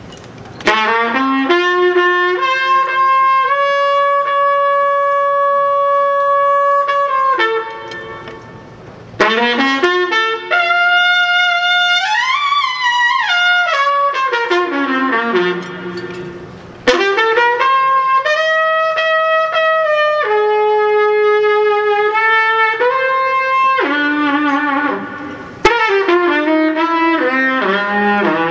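Trumpet playing a slow jazz ballad introduction in long held notes, in four phrases with short breaks between them.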